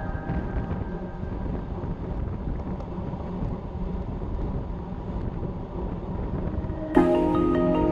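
Wind rushing over the microphone of an action camera on a road bicycle at about 53 km/h, a steady rumble with road noise under it. Background music fades out at the start, and music with mallet-percussion notes comes in abruptly about seven seconds in.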